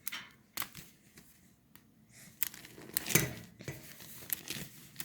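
Light handling noise: scattered clicks and small knocks, with a short rustle about three seconds in.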